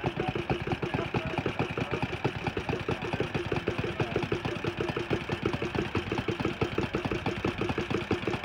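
An engine idling steadily with a rapid, even pulse.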